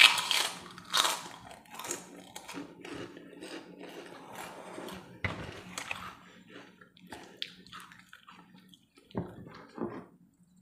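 Crunching on a crisp fried cracker (kerupuk): a loud bite at the start, then irregular crunching chews that grow fainter over several seconds.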